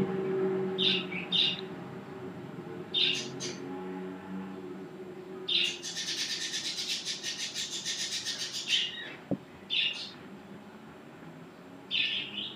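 Birds chirping: short high chirps every second or two, and a rapid trill lasting about three seconds from about six seconds in.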